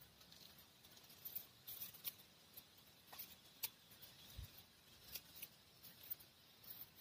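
Near silence, with faint scattered ticks and a soft low thump about four and a half seconds in.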